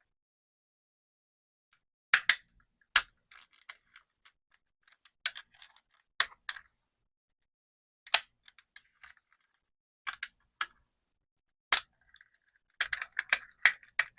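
Marbles clicking and rattling down a toy marble run: single sharp clicks a second or two apart with faint rolling rattle between, then a quick flurry of clicks near the end as several marbles strike the track together.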